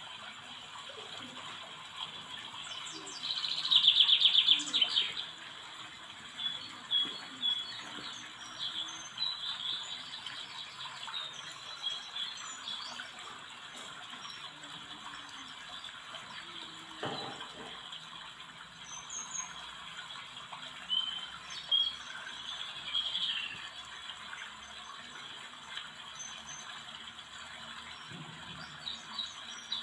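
Small birds chirping intermittently, with a loud fast run of chirps about four seconds in. A single click about halfway through.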